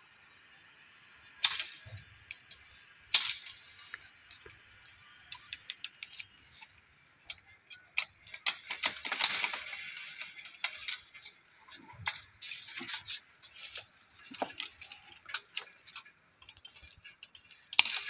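Pruning shears cutting thin almond branches: sharp snaps, the loudest about one and a half and three seconds in and again at the very end. In between come small clicks of the blades and a rustle of leaves and twigs.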